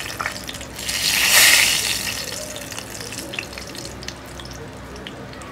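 Hot oil sizzling and crackling around a breaded chicken drumstick as it is lifted out of a small deep pan on a wire spider skimmer. The hiss swells loudly about a second in, then settles to scattered pops.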